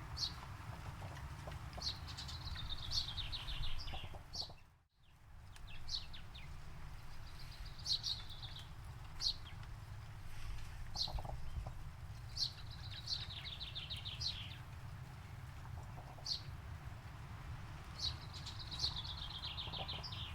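Forest birdsong: a songbird gives a fast trill of rapid notes falling in pitch three times, with single sharp chirps between, over a steady low rumble. The sound dips out for a moment about five seconds in.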